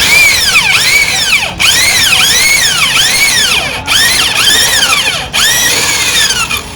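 Electric drill boring out a bolt hole in metal to enlarge it, giving a loud high-pitched whine whose pitch rises and falls about every two thirds of a second. The drilling stops briefly three times.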